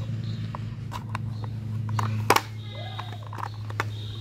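Small plastic clicks and taps as orange plastic toy wheels are handled and fitted onto a plastic toy bus body, with one sharper click a little past halfway.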